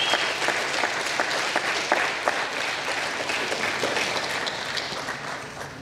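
Audience applauding: many hands clapping in a dense patter that fades out near the end.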